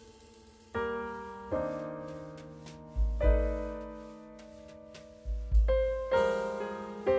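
Background piano music: slow struck notes and chords that each fade away, with deep bass notes about three and five and a half seconds in.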